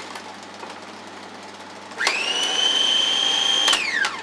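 Electric food processor motor running for a little under two seconds, starting about halfway in. Its whine climbs quickly to a steady pitch and winds down as it is switched off, as it blends raw seafood to a smooth purée.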